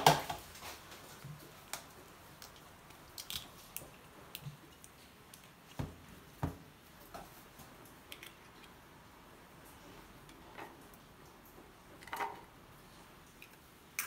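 Eggs being cracked and separated over a bowl: scattered faint taps and knocks of eggshell against the bowl rim and soft clicks of the shell halves, the sharpest pair of knocks about six seconds in.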